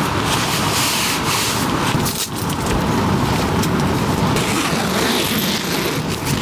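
Nylon fabric rustling and rubbing as a puffy sleeping bag is stuffed and a sleeping mat is rolled up. There is a short break about two seconds in.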